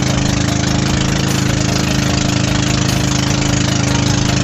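Outrigger boat (bangka) engine running steadily at cruising speed, a constant drone over a steady rushing hiss.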